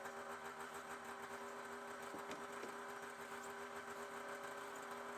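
A steady low hum made of a few held tones, like a small motor running, with a few faint ticks.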